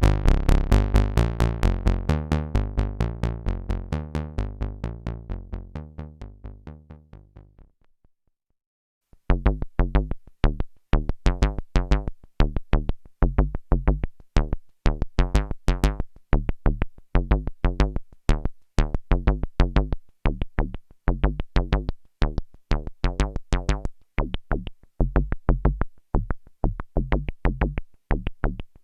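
Behringer Octave Cat analog synthesizer playing a fast sequenced pattern of short, plucky bass notes, fading out over about eight seconds. After about a second of silence a new sequence with a different pattern starts.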